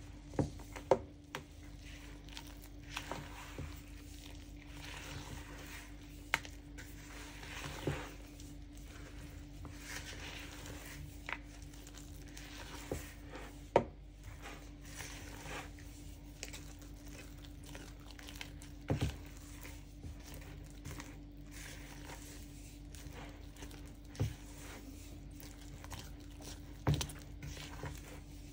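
Spatula stirring and scraping a thick, stiff cocoa cake batter around a plastic mixing bowl, with sharp knocks now and then as the spatula strikes the bowl's side.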